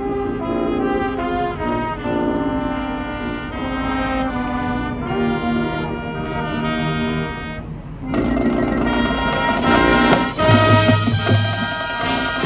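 High school marching band brass section playing sustained chords. About eight seconds in the full band comes in louder, with drum hits and deep low brass.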